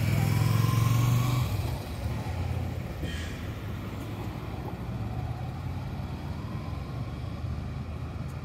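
Electric tram pulling away from the stop: a low rumble with a faint rising motor whine that fades after about a second and a half as it draws off, leaving a steady low street hum.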